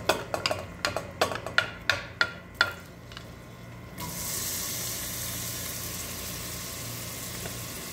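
A quick run of sharp ringing taps as the garlic is knocked out of its dish into the pot, then, about four seconds in, diced onion drops into the hot oil and a steady sizzle starts in the stainless steel pot.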